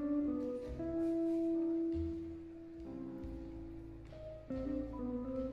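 Instrumental background music with long held notes over a bass line.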